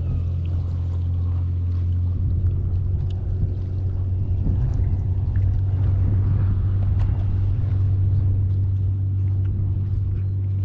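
An engine running steadily with an even low hum.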